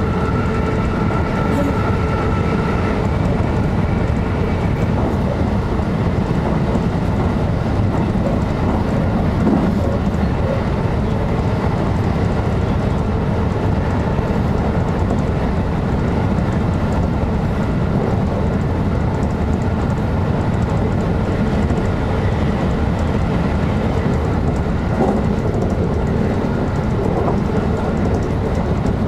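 JR electric train running steadily, heard from inside the driver's cab: an even rumble of wheels on rail. A faint whine fades out about three seconds in.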